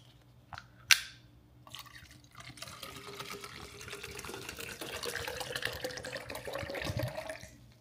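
Bottled water poured into a tall drinking cup, a continuous pour whose pitch rises as the cup fills, stopping just before the end. A sharp click about a second in.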